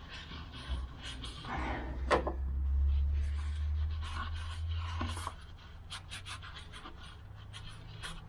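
A rag wiping a throttle body: soft rubbing with many small clicks and knocks, a short breathy rustle about two seconds in, and a low rumble from handling.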